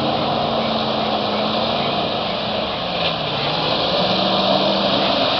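Engines of off-road 4x4 SUVs running as they drive through a flooded field over a steady hiss. The engine note dips in pitch a little past halfway and climbs back up.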